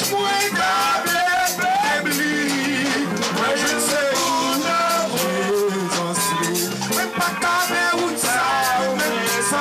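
Church worship music: a man singing into a microphone over band accompaniment, with percussion keeping a steady beat.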